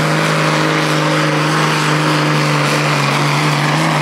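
Pulling tractor's engine running flat out, its note held steady and unchanging.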